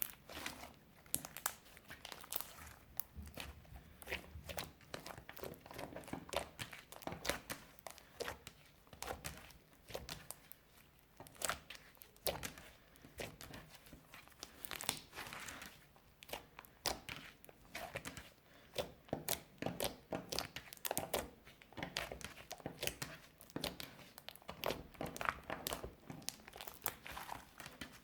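Clear slime with crushed eyeshadow mixed in, being stretched, squeezed and folded by hand: a dense, irregular run of small pops and crackles.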